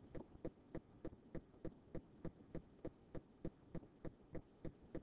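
Steady, evenly spaced ticking, about three to four clicks a second.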